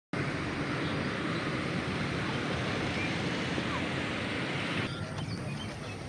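Steady rushing noise of road traffic, easing about five seconds in, with a few faint short chirps over it.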